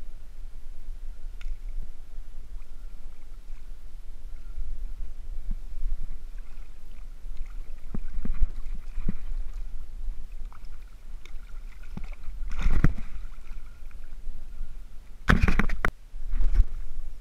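Water sloshing around a wading surfcaster in choppy surf, over a steady low rumble of wind on the microphone. A loud sudden noise comes about two-thirds of the way in, and a louder cluster of noises near the end.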